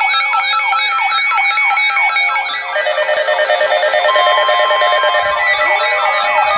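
Several weather alert radios and EAS receivers alarming at once for a severe thunderstorm watch. Their overlapping electronic alert tones include a falling yelp repeating about four times a second, a high warble and beeping tones. A steady tone joins about four seconds in, and a rising tone starts shortly before the end.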